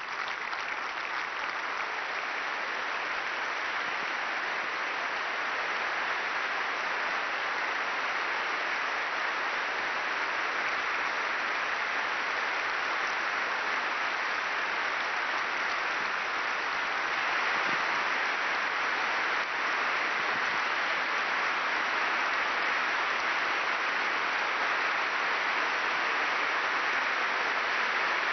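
A large congregation applauding steadily and at length inside a church.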